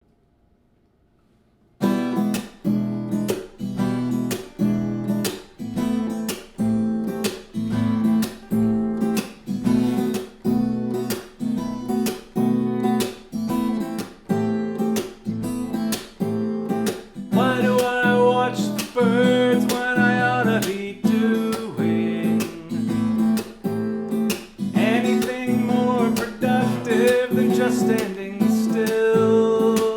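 Acoustic guitar strummed in a steady rhythm, about two strokes a second, starting about two seconds in. From just past the middle, a higher melody line bends in over the strumming.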